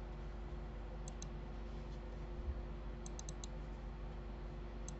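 Computer mouse button clicking in quick pairs: double-clicks about a second in, two more in quick succession about three seconds in, and another near the end, over a faint steady hum.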